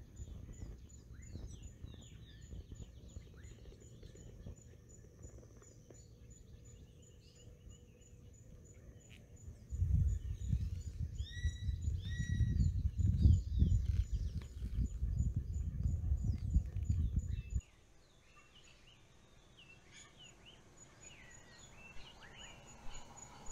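Outdoor evening ambience: birds chirping and calling, over a high, fast, even ticking. From about ten seconds in, wind rumbles loudly on the microphone, then cuts off suddenly a few seconds before the end, leaving the birds.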